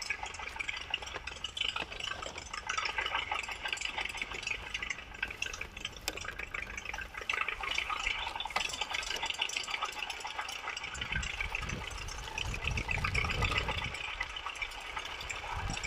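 Plastic tyres of a toy tractor and trailer rolling through wet mud and grit, a continuous wet, gritty crackle. Low rumbling surges come in over the last few seconds.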